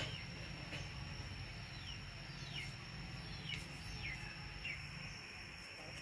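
Quiet background of short, falling bird chirps about once a second, over a steady high whine and a low hum. A sharp click at the very start.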